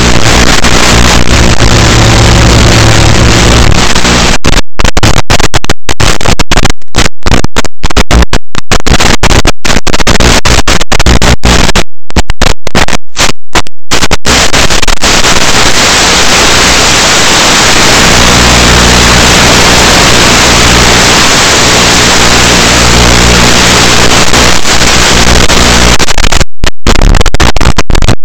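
Loud static hiss from an analog FPV video receiver's audio channel, with a low buzzing hum in the first few seconds and again through the second half. The static cuts out briefly many times between about 4 and 14 seconds, and again near the end.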